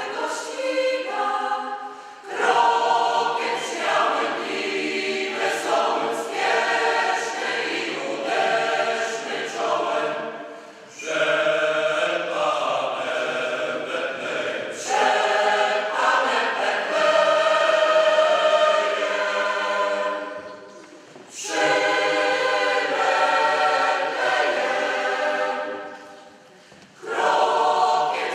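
Mixed choir of women's and men's voices singing unaccompanied, in long phrases with brief breaks between them.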